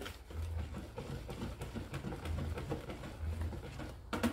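Wire balloon whisk beating cake batter in a plastic bowl: a run of soft, irregular taps and swishes.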